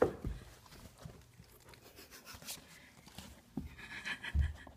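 A dog moving about on a wood floor and carpeted stairs: faint clicks and pads of its paws, with some panting, and a low thump about four and a half seconds in.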